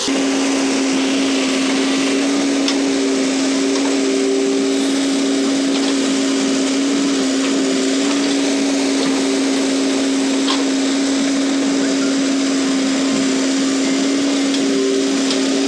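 CASE 770 EX backhoe loader's diesel engine running steadily under load, with a constant whine from the hydraulics as the backhoe arm digs into the soil. A couple of faint ticks come through, about a quarter of the way in and again past the middle.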